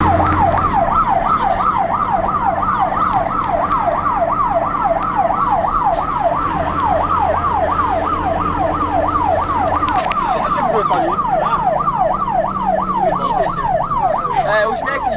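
Fire truck siren on a fast yelp, its pitch sweeping up and down about three times a second, heard from inside the truck's cab with the engine running underneath.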